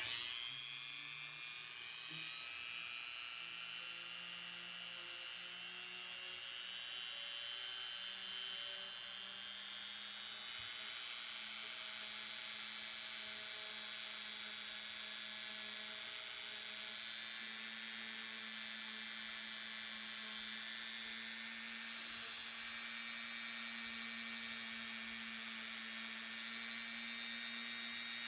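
Small high-speed rotary tool polishing a gold ring, its motor starting up at the outset and then whining steadily, the pitch creeping slowly upward.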